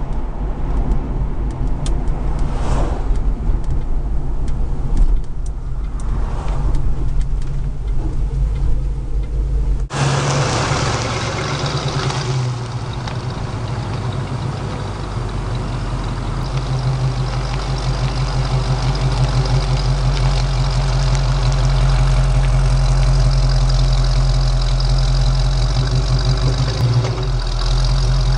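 1973 Camaro engine and exhaust running while the car is driven, a low rumble. About ten seconds in the sound changes abruptly to the engine running at a steady idle.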